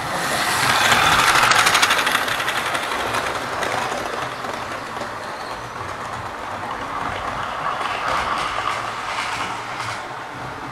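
Model railway train running past on the layout: a steady whirr with rapid clicking of wheels over the rail joints, loudest about a second or two in, then fading, with a softer second swell near the end.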